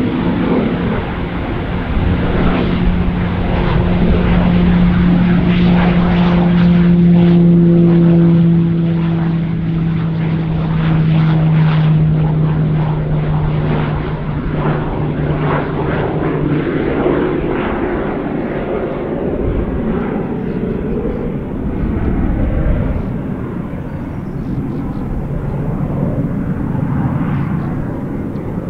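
Pilatus PC-21's PT6A turboprop and propeller at take-off power, a loud steady drone whose low hum slowly falls in pitch as it passes. About two-thirds of the way through it fades into a broader rumble as the aircraft climbs away.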